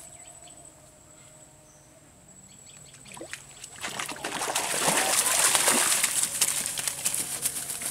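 A hooked fish thrashing and splashing at the pond surface as it is pulled in on a rod and line. The splashing starts about four seconds in and is loudest a second or two later.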